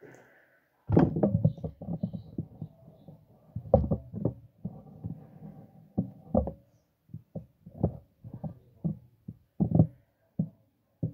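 Handling noise on a phone's built-in microphone as the phone is moved about by hand: an irregular run of low, muffled thumps and rubbing, starting about a second in, with several louder knocks.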